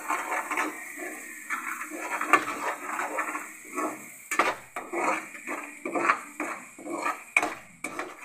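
A perforated metal spoon scraping and knocking against the sides and base of a metal pan as yogurt is stirred into a thick, wet masala. The first half is mostly scraping; from about halfway there are sharp clicks about twice a second.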